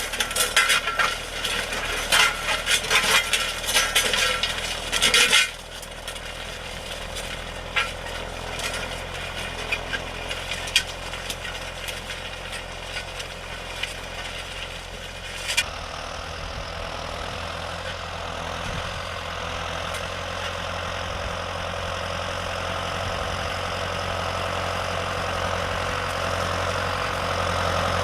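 Dense metallic clinking and rattling for the first five seconds or so, then scattered clicks over a low hum. About halfway through, a steady farm tractor engine takes over and grows gradually louder toward the end.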